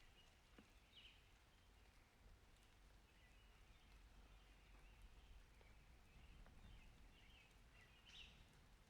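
Very faint outdoor ambience between thunder strikes: a low steady rumble under a few faint bird chirps, the clearest about a second in and near the end.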